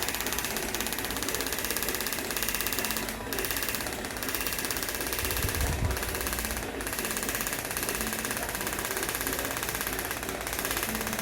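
Scalp micropigmentation tattoo machine buzzing steadily as the needle works on the scalp, briefly easing off a few times.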